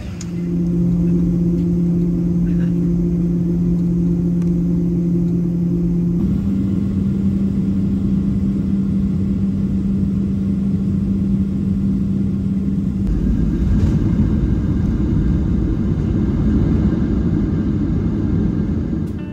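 Jet airliner engine drone heard from inside the cabin of a Southwest Boeing 737. It is a steady hum whose pitch steps up slightly about six seconds in. From about 13 seconds it becomes a heavier, rougher rumble as the plane rolls along the runway.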